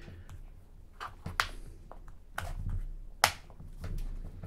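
A few sharp plastic clicks and taps from a Samsung Galaxy J2 Prime being handled, its plastic back cover being worked open.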